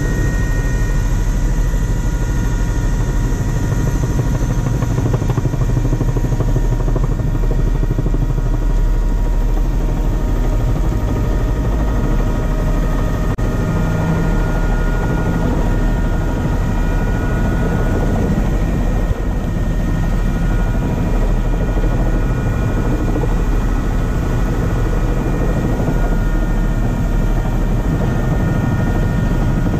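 Helicopter engine and rotor heard from inside the cabin in flight: a steady low rumble with several high, unchanging whine tones over it.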